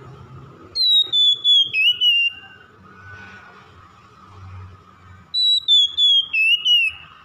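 Oriental magpie-robin (kacer) singing: two loud whistled song phrases about four seconds apart, each starting on a high clear whistle that slides and steps downward through a few sharp notes.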